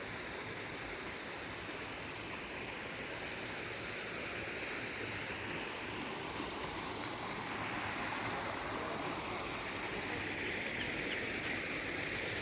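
Steady rush of running water, growing slightly louder toward the end.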